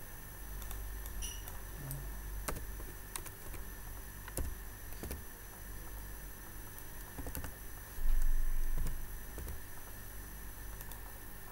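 Computer keyboard keys clicking as a word is typed, scattered keystrokes over a low steady hum. A louder low thump comes about eight seconds in.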